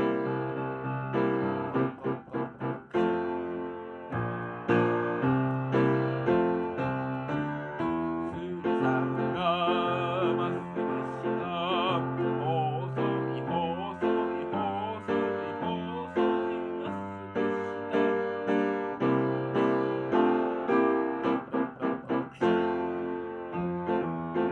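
Children's song played on keyboard, with piano-like chords and a steady rhythm. Through the middle there is a wavering melody line with vibrato.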